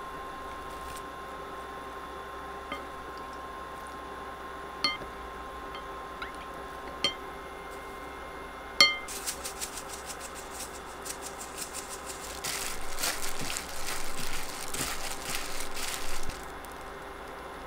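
Wooden spoon knocking against a glass mixing bowl four times as seasonings go in, each knock ringing briefly. Then plastic-gloved hands toss shredded scallions in the bowl, a crinkly rustling for about four seconds that stops suddenly.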